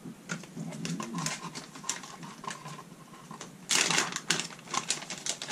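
Plastic package of soft plastic craw baits crinkling as it is handled, then torn open with a loud rip about four seconds in.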